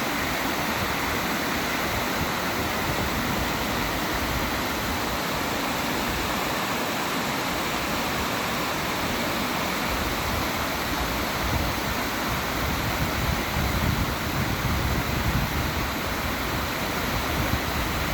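Steady rush of water from the Karapınar waterfall, a dense even roar. A low rumble grows louder in the second half.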